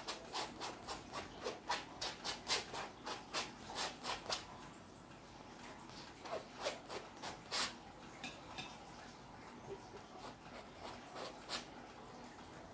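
A paintbrush's bristles scrubbing paint across a canvas in quick back-and-forth strokes, about four a second for the first four seconds or so. A second run of strokes comes about six seconds in, and a few scattered strokes follow near the end.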